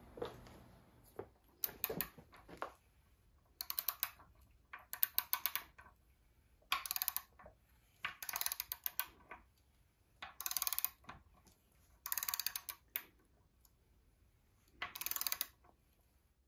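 Ratchet wrench clicking in about eight short bursts, each a quick run of sharp clicks, spaced a second or two apart as the handle is swung back and forth.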